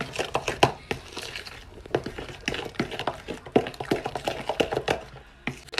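A spoon stirring a thick yogurt and spice marinade in a bowl, with irregular clicks and scrapes of the spoon against the bowl's sides.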